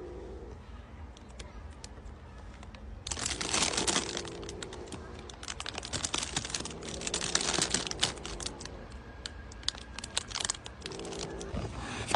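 Clear plastic bag crinkling and rustling in bursts as it is handled, with many small crackles, loudest from about three to eight seconds in.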